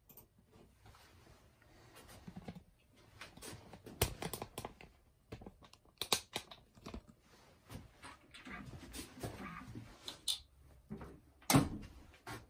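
Scattered clicks, knocks and rustles of gold bars and tools being handled. About a second before the end comes the loudest sharp knock: the lid of the Niton XRF analyzer's test stand being shut.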